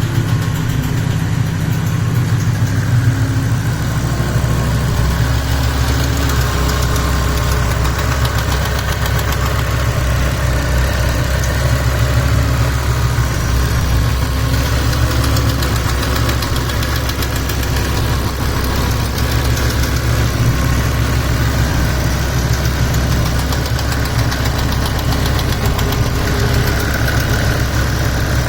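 2007 BMW M6's S85 V10 engine idling steadily with a fast, light ticking from the engine. The tick started after the car sat for months on old, expired oil, and an oil change has not cured it.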